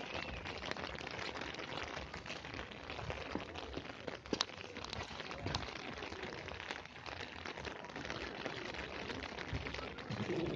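Heavy rain falling steadily: a dense, even hiss with many separate drop hits.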